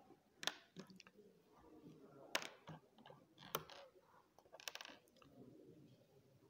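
Faint handling noise from a sheet of paper notes: a few separate clicks and taps, then a short rustle about five seconds in as the sheet is shifted.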